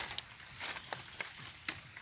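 Irregular light clicks and knocks, about five in two seconds, spaced unevenly, with no engine running.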